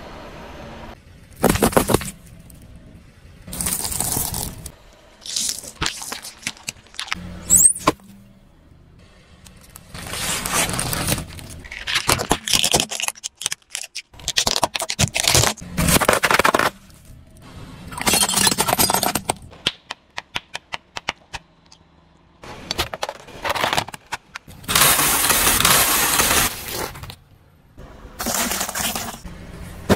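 Objects, including plastic toys, being crushed under a car tyre on asphalt: a string of separate bursts of cracking, snapping, crunching and scraping, with short pauses between them.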